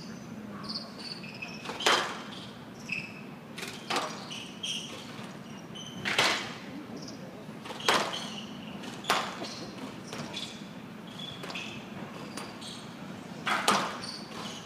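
Squash rally: a string of sharp cracks as the ball is struck by the rackets and hits the walls of a glass court, roughly every one to two seconds with a longer gap near the end. Short high squeaks of the players' shoes on the court floor come between the hits.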